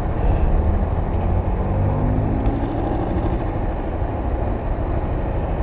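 Small Chinese motorcycle's engine idling at a stop, with a steady low rumble and the sound of street traffic passing.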